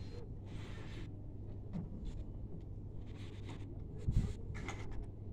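Quiet outdoor background with a steady low hum and faint scattered clicks, and one dull thump about four seconds in; the pipes and drums are silent.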